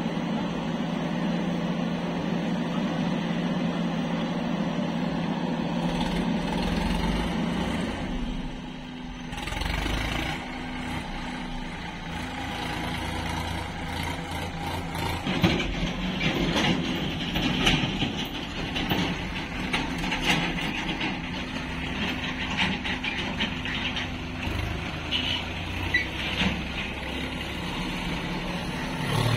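JCB 3DX backhoe loader's diesel engine running under load as it digs earth, its note changing after a brief dip about eight seconds in. Sharp metal clanks and knocks come through the second half.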